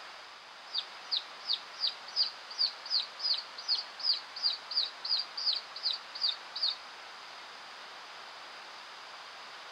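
Recorded chick calls played by a predator-lure sound device: a run of about sixteen high peeps falling in pitch, about three a second, lasting some six seconds, over a steady hiss.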